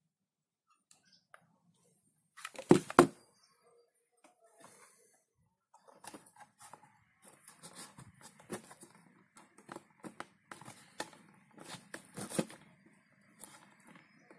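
Dry birch bark pieces crackling and scraping against a plastic flower pot as they are glued and pressed on by hand, with two louder knocks about three seconds in.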